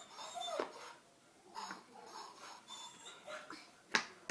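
Faint recorded farm-animal sounds played through a sound puzzle's tiny speaker, triggered as a piece is set back into its slot; they come in a couple of short bursts.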